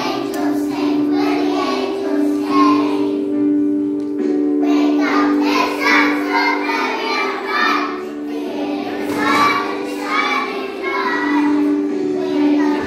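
A group of young children singing together over a musical accompaniment with steady held notes.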